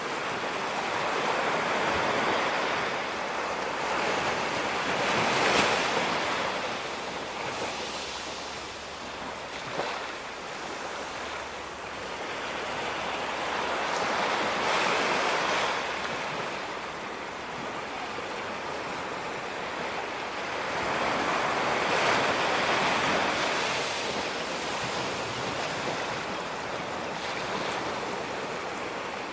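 Ocean waves breaking on a beach, the surf swelling and easing every several seconds, with some wind noise.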